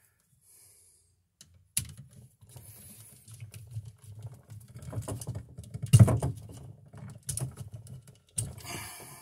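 A flathead screwdriver turning a terminal screw on a GFI receptacle, with the plastic device and its wires being handled: irregular small clicks, scrapes and rustles beginning about two seconds in, the sharpest click about six seconds in.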